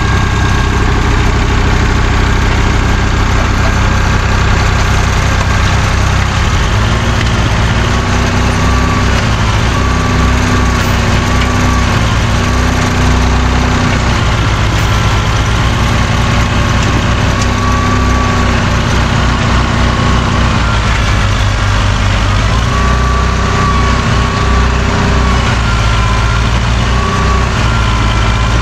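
Two farm tractor engines running together under work. One holds a steady low drone, while the other's pitch swells up and falls back several times as it is throttled up and down.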